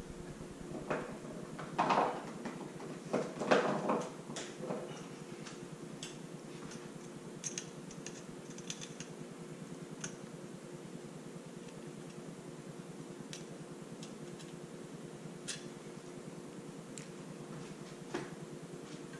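A steady electrical hum with a few knocks and clicks in the first five seconds, then only scattered faint ticks.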